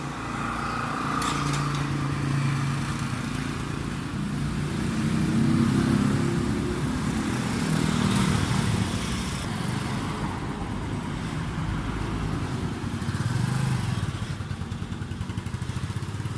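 Honda CT125's single-cylinder four-stroke engine running after its air-fuel screw adjustment. Its speed rises and falls around the middle, then it settles into an even idle pulse near the end.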